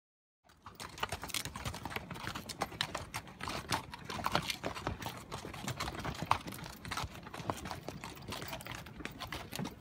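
Hooves of a string of pack mules walking past on a rocky trail: an irregular, continuous run of sharp clip-clops and knocks, starting about half a second in.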